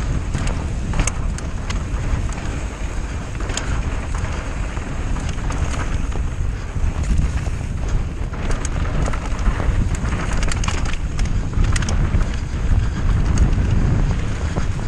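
Mountain bike riding down a dirt trail: wind buffeting the microphone in a steady low rumble, with tyre noise and scattered sharp clicks and rattles from the bike over bumps.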